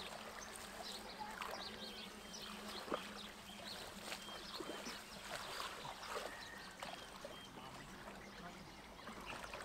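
Muddy pond water sloshing and splashing irregularly as a mosquito net is dragged through it by people wading, with one sharper splash about three seconds in.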